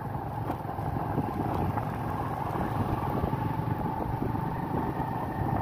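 Steady engine and road noise from inside a moving vehicle travelling along a rough road, with a constant hum underneath.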